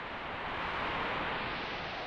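Steady rushing wind noise of a tornado, a hiss-like roar with no distinct tones that swells and eases slightly.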